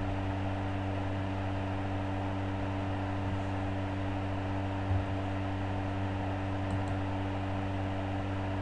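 Steady low hum with a hiss, with one faint knock about five seconds in.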